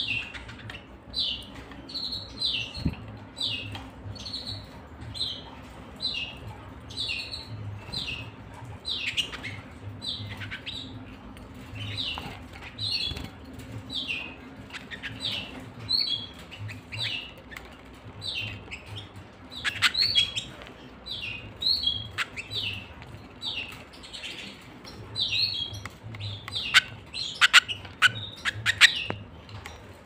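Caged canaries chirping: short, high call notes repeated about once or twice a second, with a few sharp taps near the end that are louder than the chirps.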